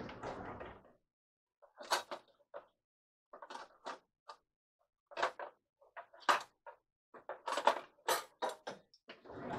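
Kitchen handling: a string of short, irregular knocks and clatters as cupboards, a drawer and dishes are worked, with a longer rustle in the first second.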